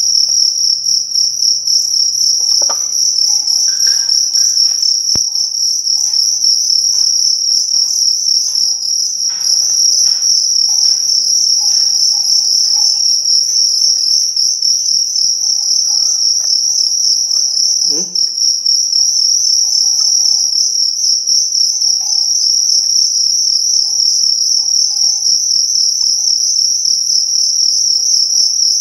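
Crickets singing: a loud, high, unbroken trill with a fast pulse to it. Light taps and knocks come and go over about the first half.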